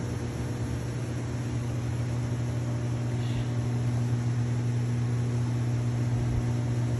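Steady low hum of a running machine, one even droning pitch with fainter overtones.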